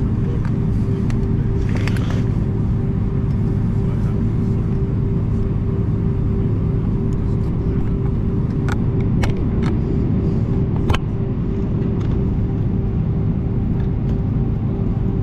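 Steady cabin noise of an Airbus A319 taxiing with its engines running: a constant drone with a low rumble and a steady hum. A few sharp clicks come about nine and eleven seconds in.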